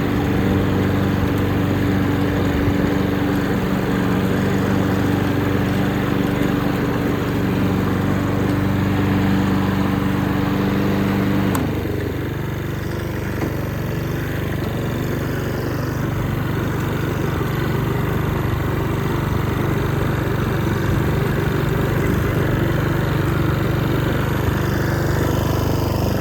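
Honda HRN216 push mower's engine running steadily. About twelve seconds in there is a click, and the engine's note drops to a lower, rougher sound that carries on steadily.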